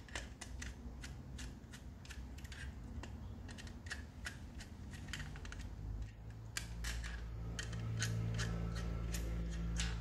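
Repeated sharp clicks and snips of a small hand tool, such as side cutters, working on a plastic light-fitting pod base as its terminals are loosened. A low steady hum comes up about six seconds in.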